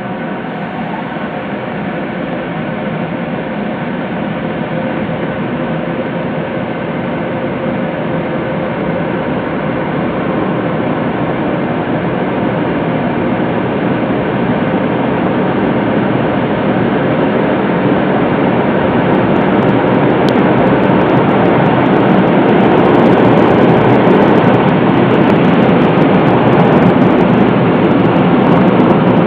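Automatic car wash machine running: a steady, dense mechanical noise with a faint hum, growing gradually louder.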